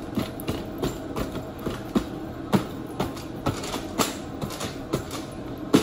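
A fork stabbed repeatedly through the skins of halved spaghetti squash lying face down on a foil-lined baking sheet, punching holes: a string of sharp, irregular knocks, roughly two a second.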